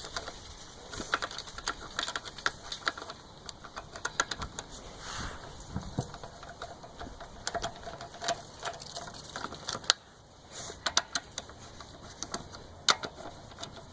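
Irregular light metallic clicks and clinks of lug nuts being handled and started onto wheel studs by hand, with no power tool running.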